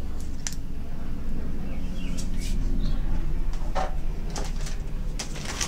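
Handling noise: a few separate clicks and knocks as a plastic RC buggy is moved and set down on a counter, over a steady low hum.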